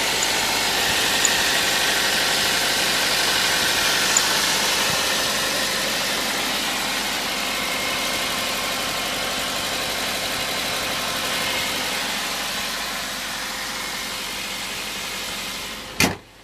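Subaru Levorg 1.6's turbocharged flat-four idling shortly after start-up, with an airy whirring abnormal noise that slowly fades; it is the noise the owner says the car has made right after starting since delivery. A few light ticks come in the first seconds, and a sharp click near the end cuts the sound down.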